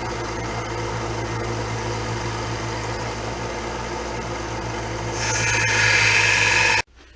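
Power grinder running and grinding the bevel onto a steel saw-blade knife blank, a steady motor hum under a rough grinding rasp. About five seconds in the grinding gets louder and brighter as the blade is pressed harder, then the sound stops abruptly near the end.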